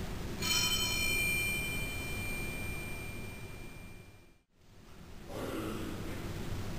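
Small altar bell rung once, its high overlapping tones ringing out and slowly dying away over about four seconds in a reverberant church.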